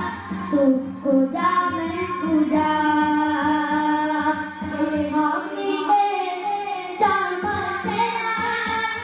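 Children singing a qawwali into handheld microphones: a sung melody of held notes that bend and glide between phrases, over a steady low drone.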